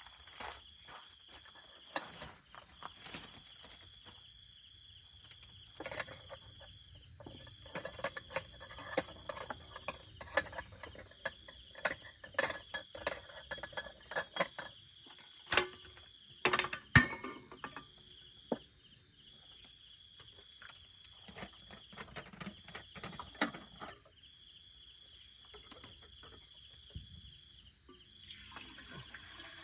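Night chorus of crickets and other insects, a steady high-pitched trilling that breaks off and resumes every few seconds. Scattered clicks and rustles sound over it, the loudest knock about seventeen seconds in.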